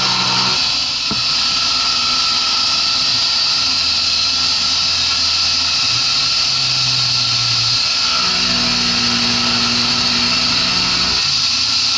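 CNC milling machine cutting aluminium with a 12 mm three-flute end mill at about 4000 rpm, under a steady hiss of mist coolant. Lower motor tones underneath change pitch every couple of seconds as the toolpath moves.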